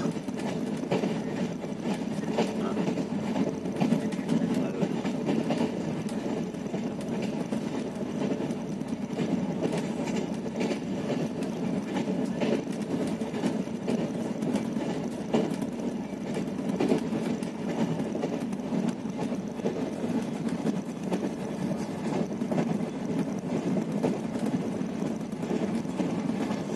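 Passenger train running at speed, heard from inside the coach: a steady rumble of wheels on the track, with frequent clicks and rattles throughout.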